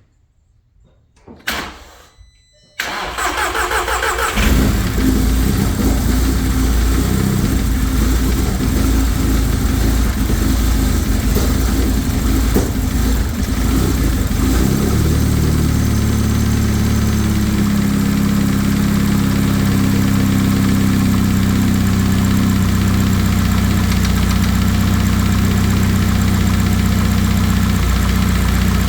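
A couple of clicks, then a VW/Audi EA888 turbocharged four-cylinder engine starts about three seconds in and runs at a raised idle, settling lower about halfway through. The owner takes its knock for piston slap.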